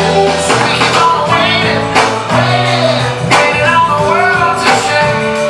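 Pop song with a female lead vocal, guitar and a steady beat, playing as the workout soundtrack.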